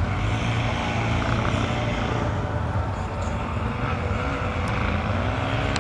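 Distant ATV (quad bike) engines running across the field, a steady drone whose pitch shifts slowly.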